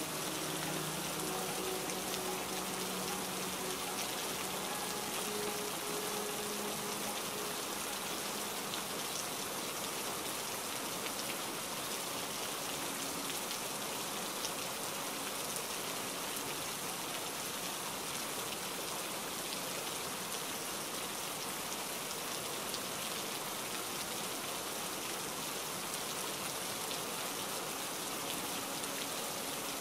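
Heavy rain falling steadily, an even hiss of many drops.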